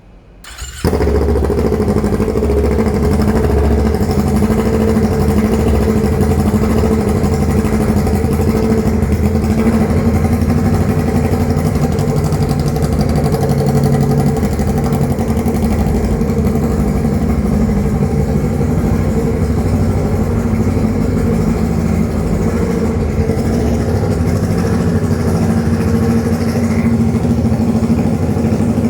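Kawasaki Ninja 650's parallel-twin engine starting about a second in, then idling steadily through a short straight-pipe exhaust with no muffler.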